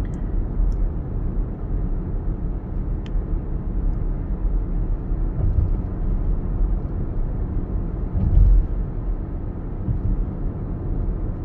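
Cabin road noise in a NIO electric SUV cruising at about 65 km/h: a steady low rumble of tyres and wind, with one brief louder low bump about eight seconds in.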